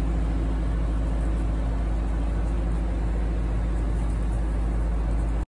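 Air conditioner running in a small mobile kitchen: a steady hum with an even rush of air. The sound drops out for an instant near the end.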